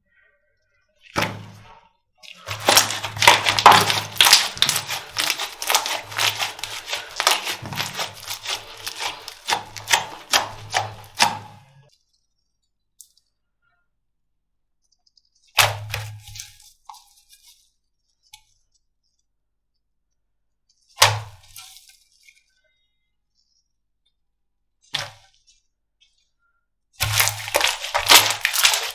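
Slime being pressed and squeezed by hand, giving a dense run of sharp crackling clicks and pops for several seconds. Later come a few single pops and then another crackling run near the end.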